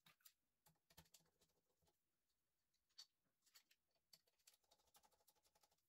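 Near silence, with faint scattered clicks and taps as the water cooler's radiator, fan and tubing are handled. The plainest tap comes about three seconds in.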